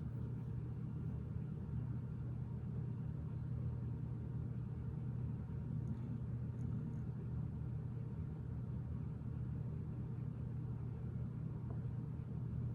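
A steady low background hum with no change in level, with a few faint clicks about halfway through.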